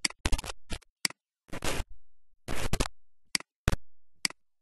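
Irregular clicks and short scratchy noises, about a dozen in a few seconds, with dead silence between them.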